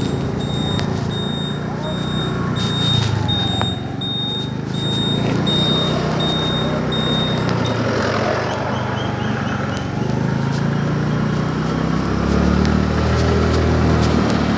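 Honda Dio 109 cc single-cylinder scooter engine running as it rides through slow traffic, with road and wind noise on the microphone. A repeated high electronic beep, about two a second, sounds for the first eight seconds or so.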